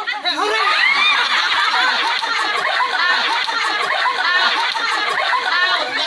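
A group of people laughing and chattering together, many voices overlapping.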